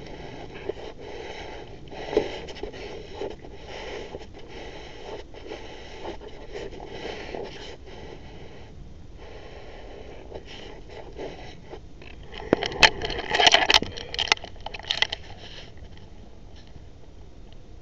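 Footsteps swishing through long grass, fading as the walker moves off, then a louder burst of scraping and rustling about 13 seconds in.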